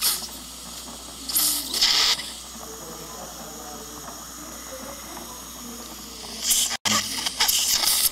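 Surgical suction tip hissing in two loud bursts, about a second and a half in and again near the end, as it draws blood and air from the extraction site, with a fainter steady hiss between.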